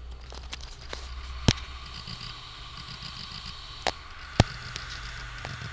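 New Hitachi 2 TB hard drive spinning with a steady low hum and faint whine, picked up with a phone pressed against the drive. Three sharp knocks come through: one about a second and a half in, then two close together near four seconds. This is the strange knocking the owner hears from the new drive.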